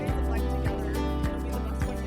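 Background music with a steady beat: a kick drum about every half second over sustained bass and chord notes.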